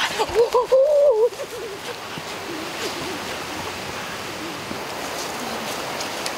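Steady rush of a stream's running water. In the first second or so a pitched, warbling call rises and falls, then breaks off.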